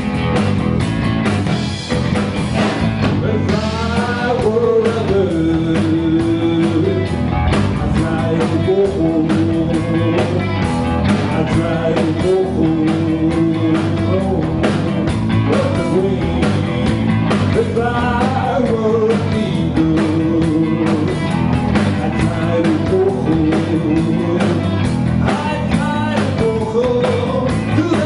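Live blues band playing a rock-and-roll beat on drums and guitar, with a lead melody of held, bending notes coming in about four seconds in and repeating in phrases.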